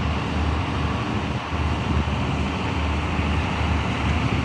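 Coupled NI Railways CAF Class 3000 diesel multiple units departing, their diesel engines giving a steady low rumble, with wind buffeting the phone's microphone.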